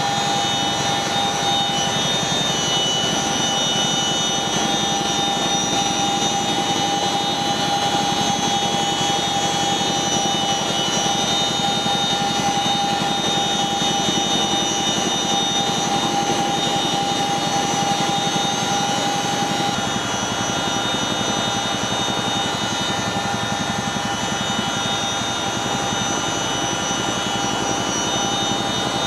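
Boeing CH-47 Chinook helicopter heard from inside the cabin while it hovers over a sling load: its twin turboshaft engines and rotors make a steady, loud noise with several whining tones over it. About two-thirds of the way in, one strand of the whine drops out and the pitch shifts slightly.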